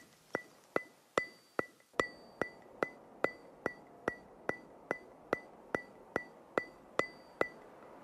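Background music in a sparse ticking passage: a steady clock-like tick, a sharp click with a short bright ring, about two and a half times a second, stopping shortly before the end.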